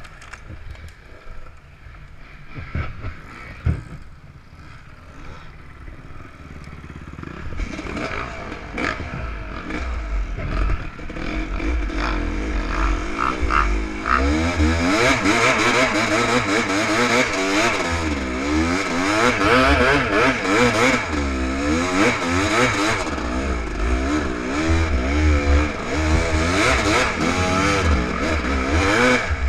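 Enduro motorcycle engine, faint at first and growing louder from about seven seconds in, then revving up and down over and over through the second half as the bike is worked over rough ground. A few knocks and clatters sound in the first few seconds.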